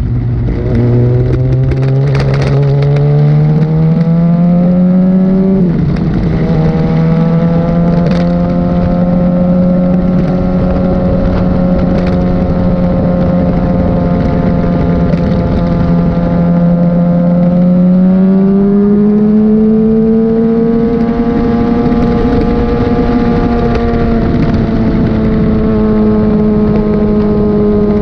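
Liter-class sportbike engine heard from the rider's seat, shifting up right at the start and again about six seconds in. It then cruises at steady revs, which climb a little near the two-thirds mark and hold there.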